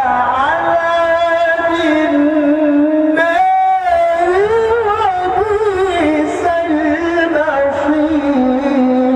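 A man's voice reciting the Quran in the melodic, ornamented qira'a style, holding long notes with wavering pitch. A short break comes about three and a half seconds in, and a new phrase starts.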